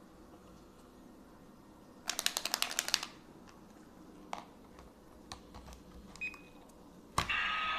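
Homemade Kamen Rider driver prop being handled: a fast run of plastic clicks for about a second, then a few single clicks and a short beep. Near the end, its electronic sound effect starts, loud.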